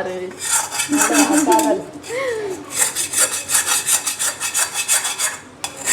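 Rhythmic scraping strokes, about five a second, pausing briefly about two seconds in and again near the end.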